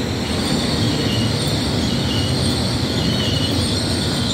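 Hull Trains Class 802 bi-mode passenger train passing close at speed: a steady rumble of wheels on rail with a high whine running above it.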